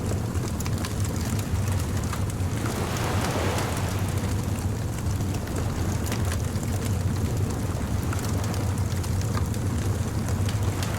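Beach bonfire ambience: a steady low rumble of surf under the small crackles and pops of a burning wood fire, with a wave washing in about three seconds in.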